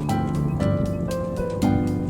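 Background music with a steady beat and plucked melody notes.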